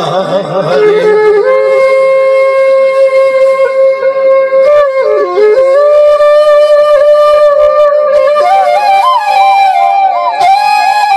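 Side-blown flute (bansuri) playing a solo melody: long held notes broken by short ornamental turns, moving up to a higher phrase about two-thirds of the way through.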